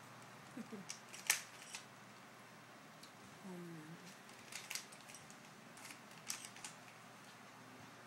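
Rubik's Cube layers being turned by hand: irregular plastic clicks and clacks as the faces snap round, some sharper than others.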